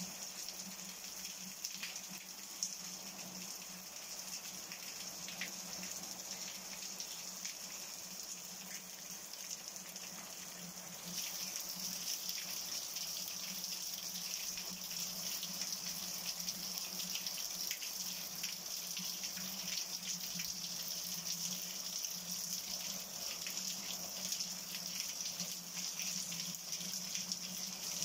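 Storm rain falling steadily on clay tile roofs, with water running off the gutters. About eleven seconds in the rain gets heavier and louder.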